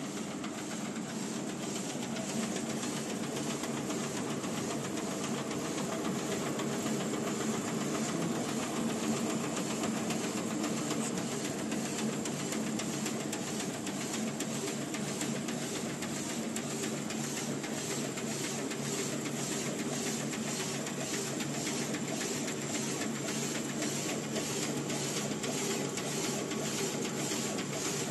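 WeenTek WK-300 Pro A3 DTF printer line running: a steady mechanical hum and hiss, with faint, evenly spaced ticks about twice a second through most of it.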